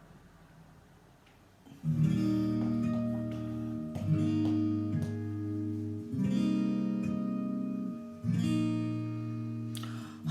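Acoustic guitar strumming the introduction to a song, starting about two seconds in after a quiet pause, with a new chord struck roughly every two seconds.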